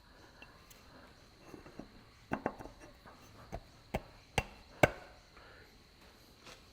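About six sharp, light knocks at irregular intervals, plausibly the greased crankshaft pulley being worked onto the keyed nose of a Perkins 203 diesel crankshaft.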